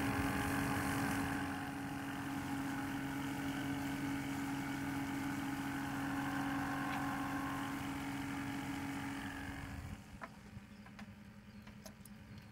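Small bait-bucket aerator pump humming steadily and bubbling the water. The hum cuts off about ten seconds in, followed by a few light clicks.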